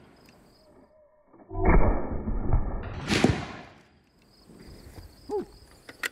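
Boys Mk I anti-tank rifle firing a .55 Boys round: a sudden deep boom about a second and a half in, then a sharper, higher blast about a second later that dies away over the next second.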